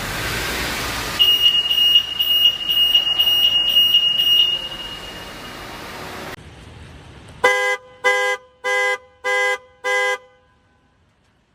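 BMW European-market panic alarm: a high-pitched siren tone pulsing rapidly for about three seconds. About seven and a half seconds in, a Mercedes-Benz US-market panic alarm follows, the car's horn honking five short, evenly spaced blasts.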